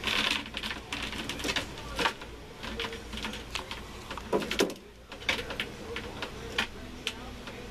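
Irregular quick scratchy strokes and clicks of a grooming comb and fingers working through a wire fox terrier's harsh coat while the head is hand-stripped.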